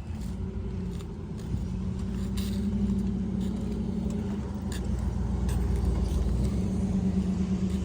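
A motor vehicle's engine running steadily, a low hum of even pitch, with a few light knocks.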